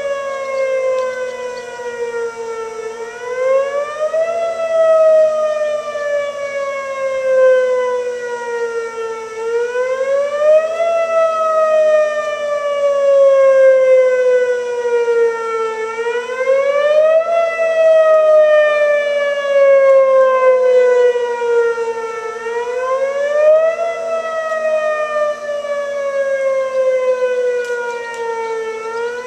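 Outdoor tornado warning siren sounding a tornado warning. Its pitch climbs quickly, then slides slowly back down, over and over about every six and a half seconds.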